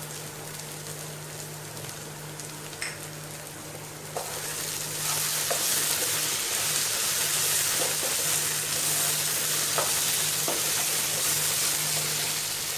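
Potatoes in onion masala sizzling in a non-stick frying pan while being stirred with a wooden spatula. The sizzle grows louder about four seconds in as the stirring starts, with a few light taps of the spatula against the pan.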